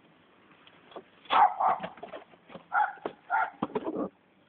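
A dog barking several times in short bursts, starting about a second in.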